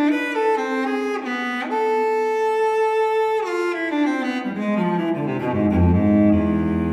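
Background music on bowed strings: a run of quick short notes, then a long held note, then a line stepping down to a low, held bass note near the end.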